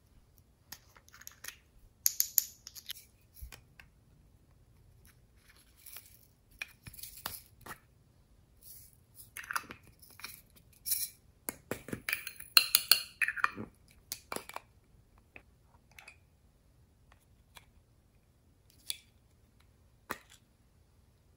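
Small plastic containers handled up close, their lids twisted and pulled off: plastic clicking and scraping, clustered about two seconds in and again from about ten to fourteen seconds, with a couple of single clicks near the end.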